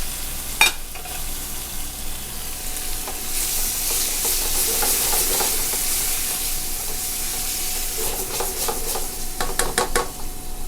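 Diced tomatoes and caramelized onions sizzling in a hot sauté pan while a spoon stirs them, scraping against the pan in two spells midway and near the end. A single sharp knock about half a second in.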